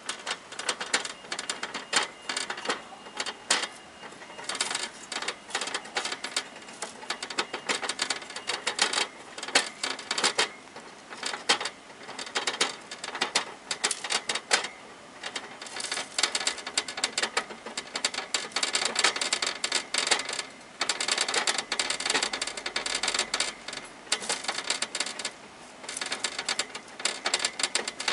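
Hamster gnawing on the metal wire bars of its cage: a rapid, irregular clicking rattle with a few short pauses.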